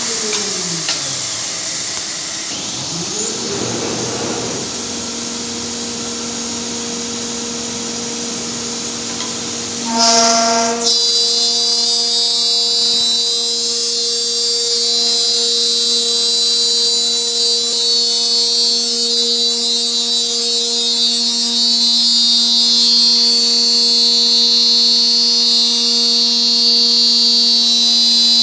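Flexicam CNC router spindle with a hiss: early on its whine falls in pitch as it slows, then rises again as it speeds back up. About ten seconds in, the sound jumps to a steady, even whine made of several pitched tones over a strong hiss, which holds unchanged.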